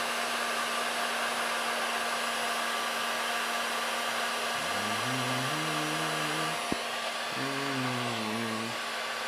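A Skil 1600-watt heat gun blowing steadily, aimed at a brake-disc bolt to soften its Loctite threadlocker. A man hums a few low notes twice in the middle.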